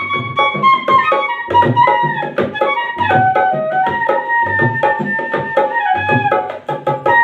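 Bansuri flute playing a melody of held notes joined by pitch slides, over a steady drum beat.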